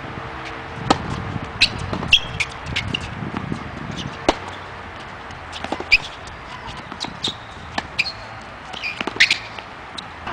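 Tennis rally on a hard court: a string of sharp pops from rackets striking the ball and the ball bouncing, coming irregularly every second or so, some with a short high squeak.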